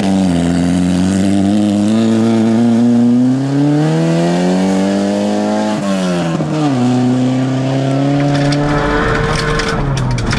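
VW Golf GTI 16V rally car's four-cylinder engine running hard at high revs. Its pitch climbs slowly for several seconds, drops sharply about six seconds in, then climbs again. A rapid crackling comes near the end.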